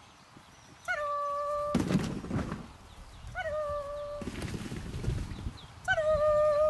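A dog whining in three long, high cries about two and a half seconds apart, each rising at the start and then held on one pitch, with stretches of rustling noise between them.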